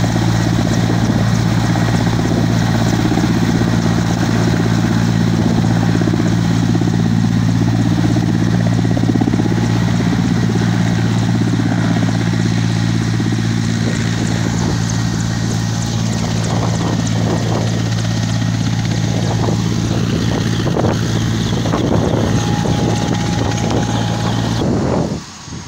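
Ambulance helicopter's rotors and engines running steadily, a continuous low hum and thrum, as it comes down and sits on the ground. The sound cuts off abruptly near the end.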